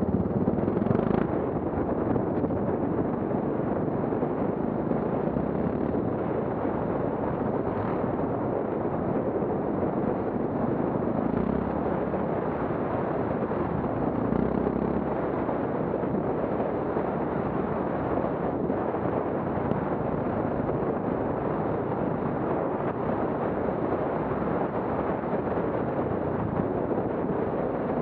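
Motorcycle ridden along a rough dirt forest track, its engine running steadily and largely buried under a constant heavy wind rumble on the microphone.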